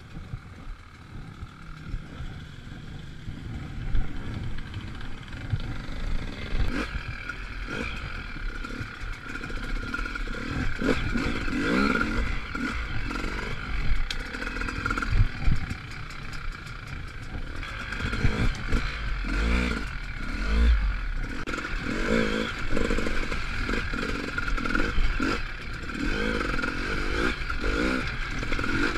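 GasGas enduro motorcycle engine revving up and down as the bike is ridden off-road, with clattering knocks from the bike over rough ground. It is quieter for the first few seconds, then revs harder with repeated rising and falling pitch in the second half.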